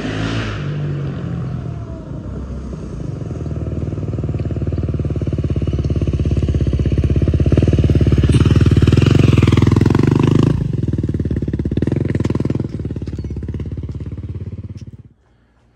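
Beta 500 RR-S single-cylinder four-stroke dirt bike with an FMF aftermarket exhaust, ridden up and past. The engine note builds to its loudest about eight to ten seconds in, drops sharply as the throttle closes near eleven seconds, then runs at low revs. It stops abruptly about a second before the end.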